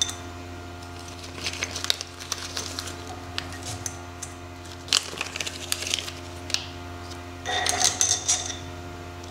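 Light metallic clicks and rattles of a caged roller thrust bearing and its washer being handled and slid onto a steel screw, with a busier patch of clicks a little before the end, over a steady low hum.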